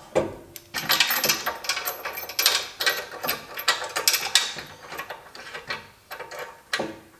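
Steel tire-carrier bracket and wheel-stud hub clinking and scraping against its mount as it is slid on and fitted by hand: a busy run of quick metallic clicks and knocks that thins out to a few scattered taps after about four and a half seconds.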